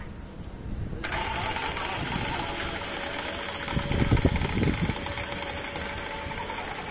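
Electric hoists of a suspended work platform (gondola) running as they winch it up its wire ropes: a steady motor whine and hum that starts abruptly about a second in, with a spell of louder low knocking about four seconds in.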